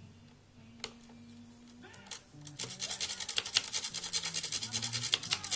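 A lock pick scraping across the pins of a Buva SKG two-star euro cylinder lock: after a quiet start with a single click, a rapid, even run of scratching clicks begins about two and a half seconds in.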